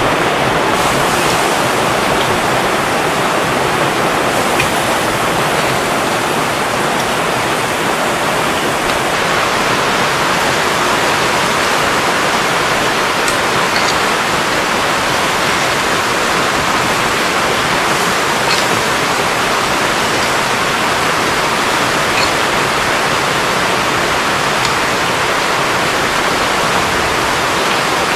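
Chicken cutlets sizzling on a cast-iron grill grate over hot coals: a loud, steady hiss with an occasional faint tick.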